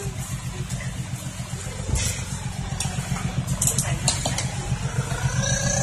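Diesel engine of a loaded six-wheel dump truck running with a low, pulsing rumble as it creeps closer on a dirt lane, growing slightly louder toward the end, with scattered sharp clicks and rattles over it.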